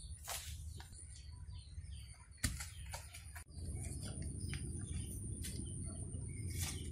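Faint bird chirps, with one sharp knock about two and a half seconds in and a steady low rumble starting about halfway through.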